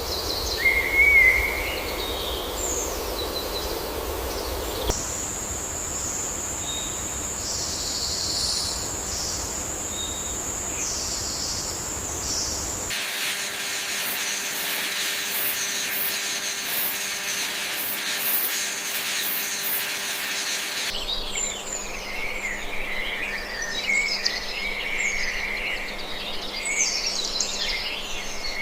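Outdoor animal ambience in several sections that change abruptly: bird chirps and calls, a steady high-pitched whine, then a dense high buzz, and finally many overlapping bird chirps.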